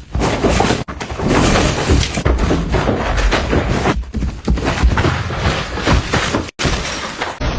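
Loud crashing and clattering with repeated thuds, in several stretches that cut off abruptly.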